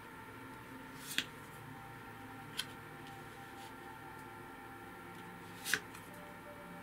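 Tarot cards handled on a table: three sharp snaps of cards being flipped or set down, the last and loudest near the end. Faint steady tones run underneath.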